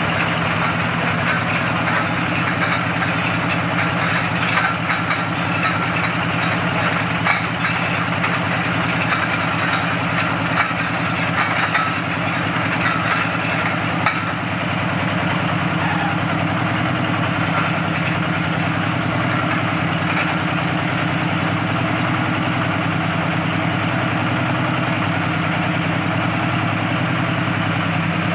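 Small single-cylinder stationary engine running steadily under load, driving a water-well drilling rig through V-belts, with the mechanical clatter of the belts and turning drill. A few light knocks come in the first half.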